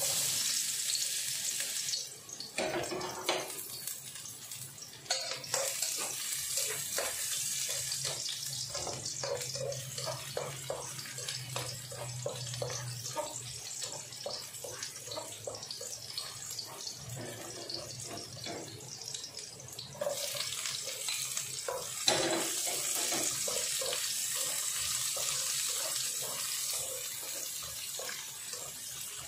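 Chopped garlic sizzling in hot oil in a nonstick wok, with the scrape and tap of a spatula stirring it. The sizzle gets louder about twenty seconds in, as chopped onion goes into the pan.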